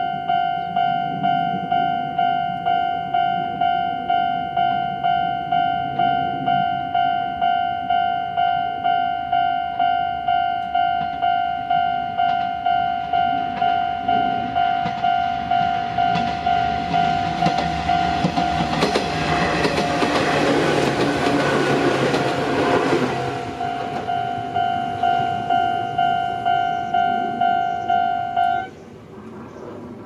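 Japanese level-crossing alarm ringing its quick, evenly repeating electronic ding. About 18 seconds in, an Izuhakone Railway Sunzu Line electric train rushes over the crossing for about five seconds. The alarm stops suddenly a second before the end as the crossing clears.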